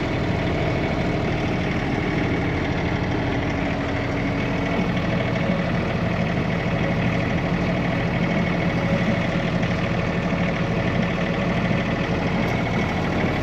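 Tractor engine running steadily at an even speed, with no change in pitch.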